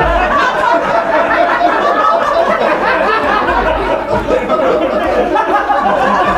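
Live audience laughing in a long, continuous wave after a joke's punchline.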